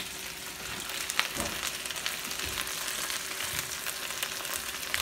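Chicken thighs sizzling in a hot frying pan in their own sweet date-syrup marinade, with no added oil: a steady frying hiss with scattered small crackles.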